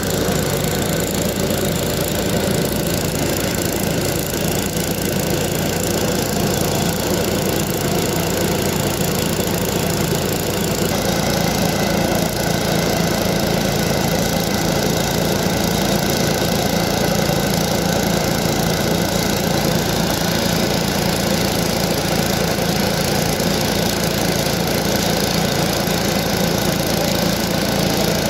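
Small engine of rail-welding equipment running steadily, with a constant hiss over it; the sound changes slightly about eleven seconds in.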